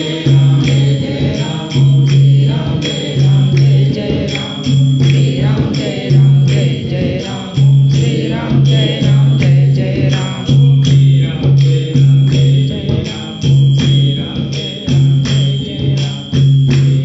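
Devotional group chanting, with a low note that pulses about once a second throughout.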